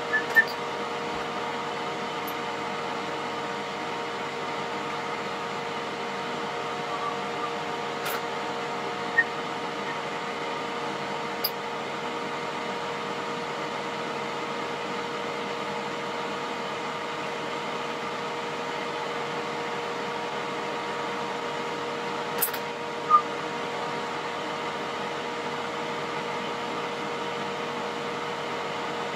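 A steady mechanical hum on a few fixed pitches, with metal tongs clinking against a glass mixing bowl a few times as florets are dipped in batter; the loudest clinks come right at the start and about 23 seconds in.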